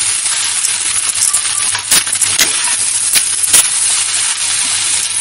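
Potatoes and onions frying with a steady sizzle in a stainless steel kadhai while a metal spatula stirs and scrapes them. The spatula clinks sharply against the pan about half a dozen times.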